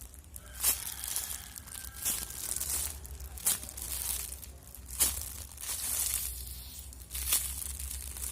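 Crinkling plastic as a squishy toy is handled, with a few sharp, loud crackles spaced a second or two apart.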